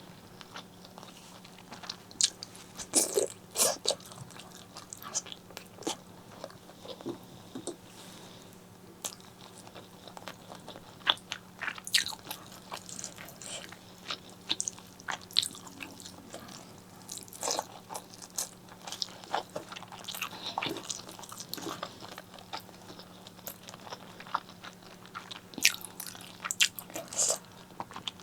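Close-miked eating: a person biting and chewing spicy pork leg curry with eggplant and rice, with irregular wet smacks, clicks and crunches. A faint steady low hum runs underneath.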